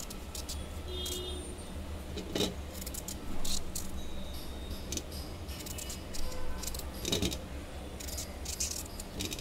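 Kitchen knife slicing through a peeled raw mango over a stainless-steel plate: an irregular string of short clicks and scrapes as the blade cuts and the slices land on the metal, over a steady low hum.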